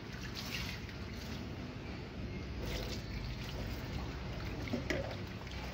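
Water poured from a plastic jug over a kitten during its bath, trickling and dripping onto the wet floor.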